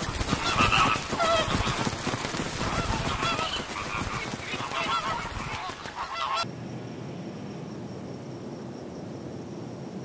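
A large flock of flamingos honking and clamouring, with splashing and wing noise as they run across the water to take off. About six and a half seconds in it cuts off suddenly to a quieter steady hiss with a faint high tone.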